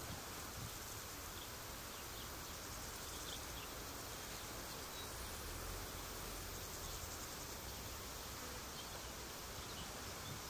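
Faint outdoor ambience: a steady, even hiss with a few faint, short, high chirps scattered through it.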